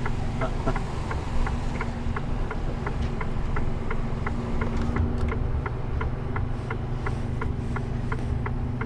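Turn-signal indicator ticking steadily, about three ticks a second, inside a lorry cab over the steady drone of the Mercedes Antos 1824's diesel engine.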